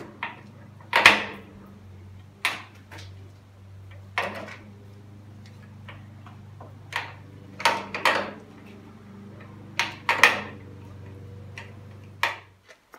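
Irregular metallic knocks and clinks, about a dozen sharp strikes, as the feed gearbox of a Schaublin 53 milling machine is worked into place by hand. A steady low hum runs underneath and cuts off near the end.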